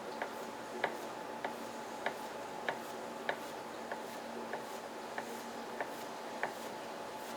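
Regular mechanical ticking, a sharp click about every 0.6 seconds, over a steady low hum.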